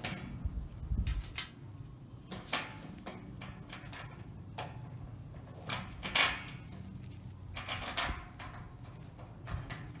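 Irregular light metal clinks and knocks from handling steel planter-bed panels while nuts are threaded by hand onto the corner's through bolts.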